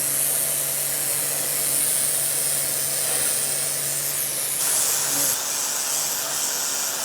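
High-pressure washer (140 bar) blasting a water jet onto pergola roof glass: a steady spraying hiss with a low motor hum beneath it. The hum drops away about five seconds in while the spray goes on with a changed tone.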